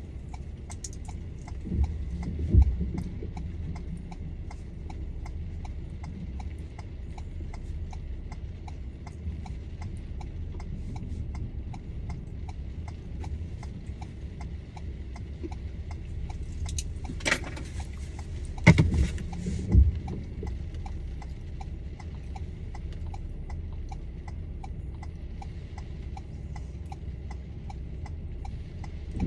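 A car's flasher relay ticking at a steady, even rhythm over the low hum of the vehicle cabin. A few louder knocks come near the start and around two-thirds of the way through.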